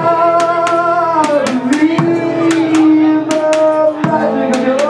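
A live blues band plays: a man sings long, bending notes over electric guitar, and sharp percussion hits come at an uneven rate of a few per second.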